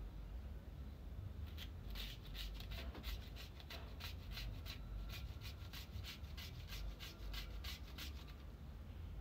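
A raw carrot being grated on a handheld metal grater: a run of quick scraping strokes, about three or four a second, starting about a second and a half in and stopping near the end.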